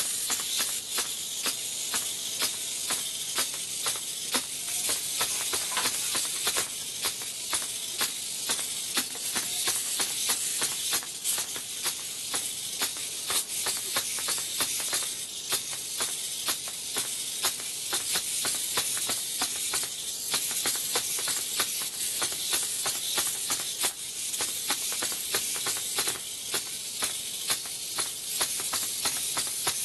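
Three-servo hexapod robot walking: its hobby servos whir with a steady high hiss, and its legs click regularly as it steps.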